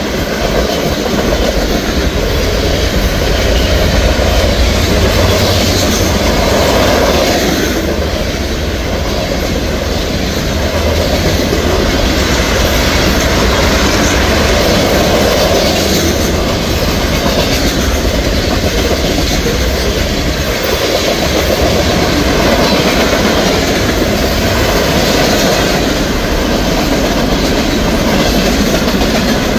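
Freight train rolling past at speed, its boxcars, tank cars and covered hoppers passing close by: steel wheels running on the rails, loud and steady.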